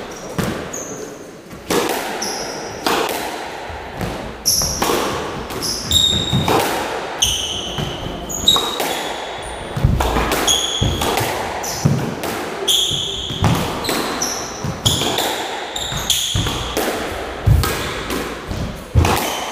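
Squash rally: the ball smacking off rackets and the court walls about once a second, each hit echoing in the enclosed court, with short high squeaks of shoes on the wooden floor between the hits.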